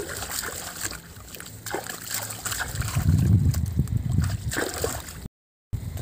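Hands splashing and sloshing in shallow muddy field-channel water while someone washes their hands and feet. The splashing is irregular, grows louder about halfway through, then breaks off suddenly near the end.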